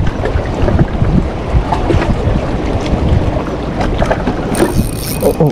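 Wind buffeting the microphone with a steady low rumble. About four and a half seconds in, a Daiwa Caldia spinning reel starts being cranked, a fine high whirr as the line is wound in.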